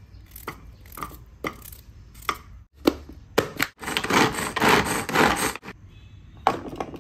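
Pull-string manual food chopper chopping carrot: a series of short cord pulls, each a brief whirr of the blades spinning in the plastic bowl, then a denser run of quick pulls in the middle. A sharp knock near the end.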